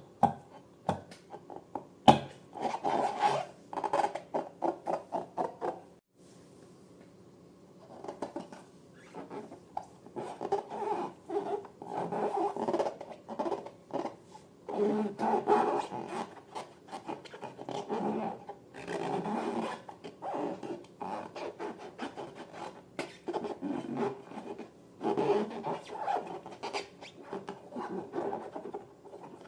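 Hands rubbing and squeezing latex balloons in irregular bursts of rubbing strokes, with two sharp snaps near the start.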